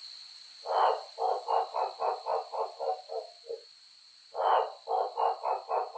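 Male waxy monkey frog calling: two series of short repeated notes about three and a half seconds apart. Each series opens with a longer note, followed by about ten short notes at roughly six a second that trail off.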